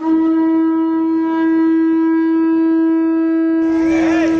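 A horn blown on one long, steady note that starts suddenly and is held without a break. A little before the end, people's voices come in under it.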